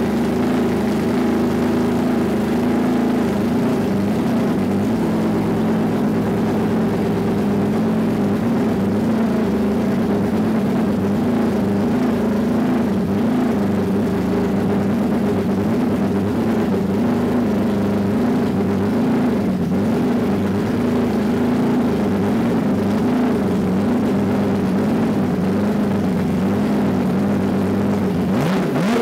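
Porsche 997 GT3 race car's flat-six engine idling during warm-up, the idle wavering slightly up and down. Right at the end the revs begin to rise.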